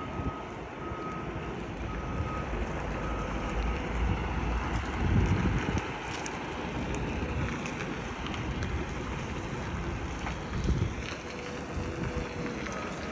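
Semi-truck diesel engine running low as the tractor-trailer backs up, with wind buffeting the microphone. A reversing beeper sounds in short beeps during the first few seconds.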